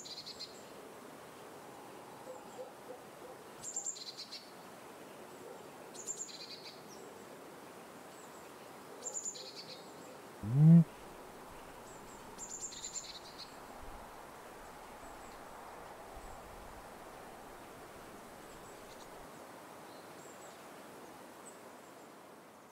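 A bird repeats a high two-note call, a higher note then a lower one, every few seconds over a steady background hiss. About halfway through comes one short, loud, rising cry from a larger animal.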